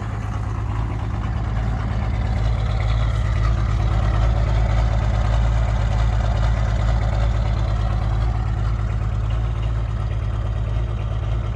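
Nissan SD33T turbo-diesel straight-six in an International Scout idling steadily just after a cold start following months of sitting, starting to smooth out.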